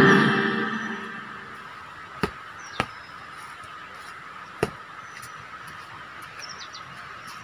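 Music fades out over the first second. Then three sharp knocks stand out from a quiet background, two close together a little over two seconds in and a third nearly two seconds later, with a few faint short high chirps near the end.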